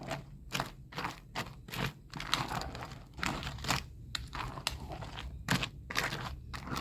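Dry ladyfinger biscuits crunching and crackling as they are handled and broken, in irregular sharp crackles a few times a second.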